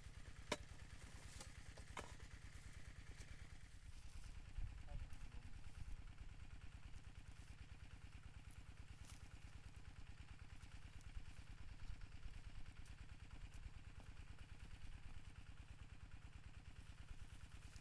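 A small engine running steadily at low level, with a few sharp clicks in the first couple of seconds.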